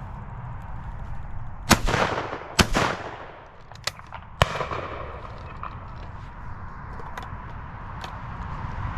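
Two shotgun shots about a second apart, a quick double fired at driven pheasants, followed a couple of seconds later by a sharper single crack and a few faint distant shots. Wind rumbles on the microphone underneath.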